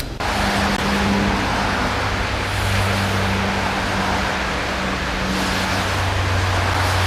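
Steady vehicle rumble with a low, even hum underneath.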